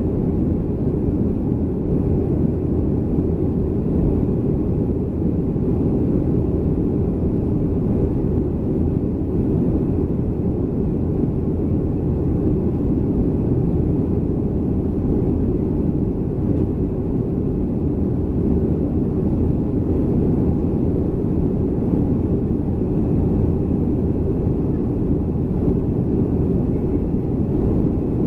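Cabin noise inside a Boeing 737-300: a steady, even low rumble of its CFM56 jet engines and the airflow over the fuselage.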